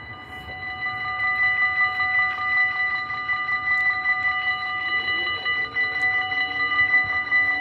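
Dutch level-crossing warning bell ringing in rapid, even strokes, a bright metallic ring growing louder over the first second or so and then steady: the crossing is closing for an approaching train.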